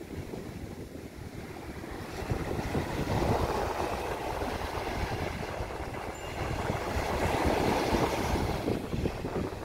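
Small waves breaking and washing up a sandy beach, the surf swelling louder about three seconds in and again around eight seconds, with wind buffeting the microphone.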